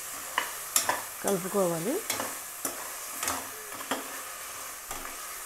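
Crab pieces in masala sizzling in hot oil in an aluminium pot while a spoon stirs them, scraping and knocking against the pot several times. The crabs are being sautéed in the oil before tamarind water is added.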